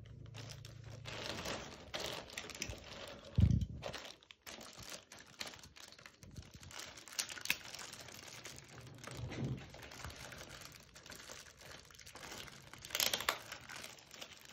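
Clear plastic bags crinkling and rustling as small accessory packets are handled and opened, with scattered small clicks and one dull thump about three and a half seconds in.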